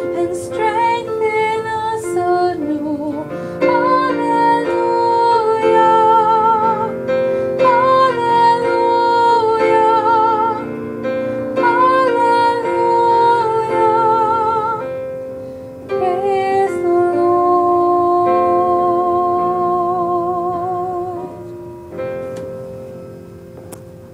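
A woman singing a slow hymn melody with vibrato over sustained instrumental accompaniment; the music dies away near the end.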